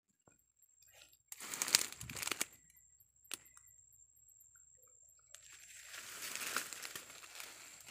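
Footsteps and body brushing through dense undergrowth, dry leaves, twigs and ferns crunching and crackling. There is a short burst of crackling about a second and a half in, a single sharp snap a little after three seconds, and a longer stretch of rustling over the last few seconds.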